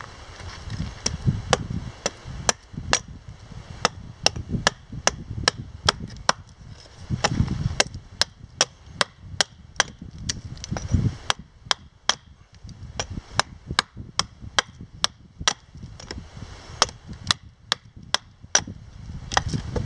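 Hatchet chopping into a cedar plank held upright on a chopping stump: short, sharp strikes about twice a second, hewing the plank flat.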